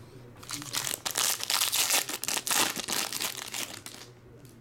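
Foil trading-card pack wrapper being torn open and pulled off the cards: a dense rustling of foil that dies away about four seconds in.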